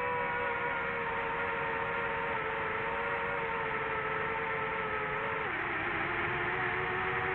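DJI FPV drone's motors and propellers whining steadily. The pitch sinks slowly, then drops a step about five and a half seconds in as the throttle eases off.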